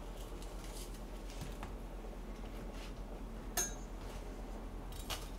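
Light clinks of kitchenware being handled over a steady low hum; the clearest, about three and a half seconds in, is a short metallic clink that rings briefly, with a couple of softer clicks near the end.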